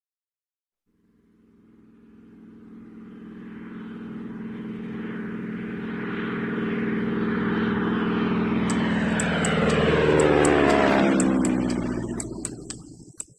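A vehicle passing by. Its engine sound swells steadily for about ten seconds, drops in pitch as it goes past, and fades away. A run of light ticks comes in during the last few seconds.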